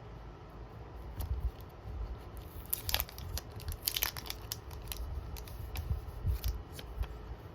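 Packaging being handled: irregular crinkling and tearing crackles, loudest in a short cluster about three seconds in.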